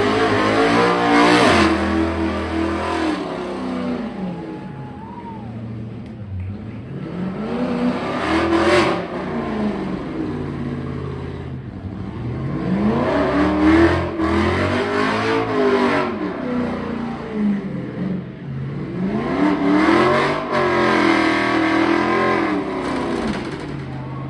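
Pickup truck engine revving hard through a burnout, its pitch winding up and falling back again and again, about four long surges, with the rear tyres spinning on the pavement.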